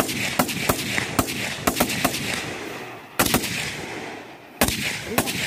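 Rifle fire on a range: several shooters firing single shots at irregular intervals, the sharp cracks sometimes overlapping and each trailing a short echo, with a lull of about a second twice.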